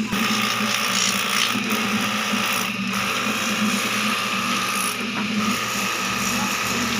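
A small motor running with a steady hum and a loud rattling hiss that starts at once and eases off near the end.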